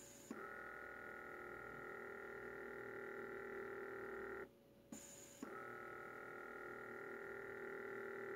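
Small air pump of a Lunix LX3 compression hand massager running with a faint steady hum. It stops about four seconds in, gives a couple of clicks, and starts again about a second later as the program cycles its squeezing.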